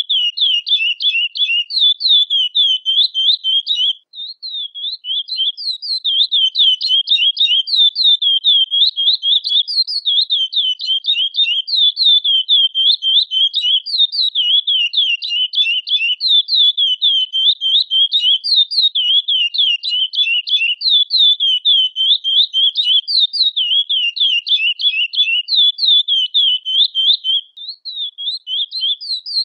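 Curió (chestnut-bellied seed finch) singing: a long, nearly unbroken run of rapid, high, sweeping notes, with two brief dips, one about four seconds in and one near the end.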